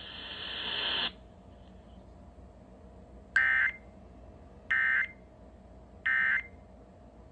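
Emergency Alert System end-of-message signal: three short, identical, shrill digital data bursts about a second apart, marking the end of the broadcast warning. A hiss rises and cuts off about a second before them.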